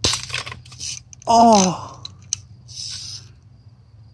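A sharp crack as a BB gun shot hits a lava lamp's glass globe and breaks it, followed by a brief crackle of glass.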